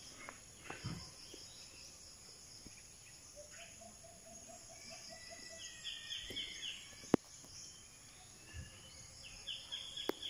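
Birds calling faintly in the trees: a quick run of low repeated notes, then high chirping phrases twice. A single sharp click sounds about seven seconds in.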